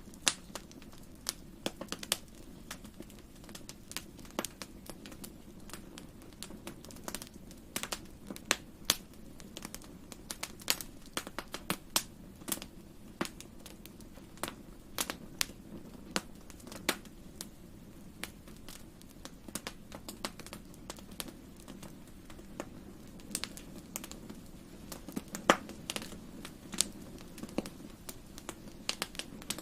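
Wood fire crackling in a fireplace: irregular sharp pops and snaps, a few a second and louder now and then, over a steady low rumble of the flames.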